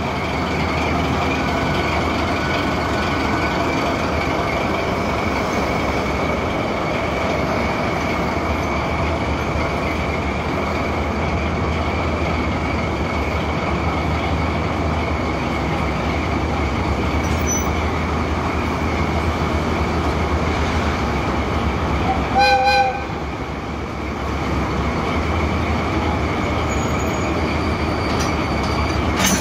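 Diesel locomotive running steadily at low revs, a low engine drone with a steady whine above it. About 22 seconds in it gives one short horn toot, and at the very end there is a sharp knock as it meets the caboose to couple.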